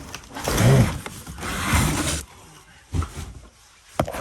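Rustling and scraping as books and boxes are handled and moved: two long rustling stretches, then two short knocks near the end.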